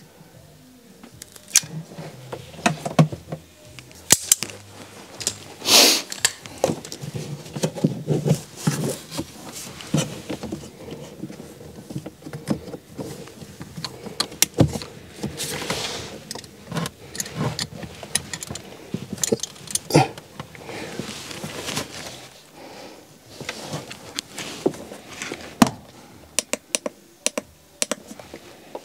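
Irregular clicks, knocks and rattles of hand work with tools and cable connections in a motorhome's underfloor battery compartment, with a few longer rustling noises, the loudest about six seconds in.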